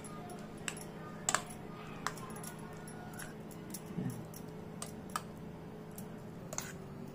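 A steel spoon stirring fruit custard in a stainless steel bowl. It gives irregular light clinks against the bowl, about ten in all, over a faint steady hum.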